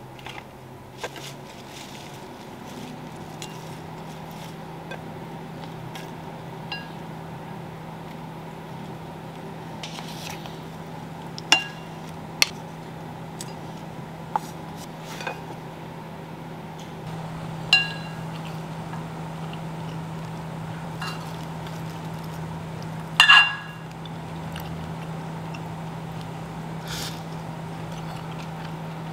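Ceramic bowls and utensils clinking while food is plated: a few sharp, ringing clinks scattered through, the loudest a cluster near the end, over a faint steady hum.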